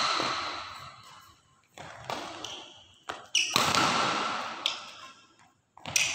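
Badminton racket strikes on a shuttlecock during a doubles rally, several sharp hits each with a long echo in a large hall, mixed with the short high squeaks of players' shoes on the court floor.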